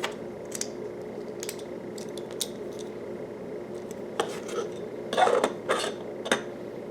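Small hard plastic Lego pieces clicking and tapping as they are handled and pressed together: scattered sharp clicks, with a busier clatter about five seconds in.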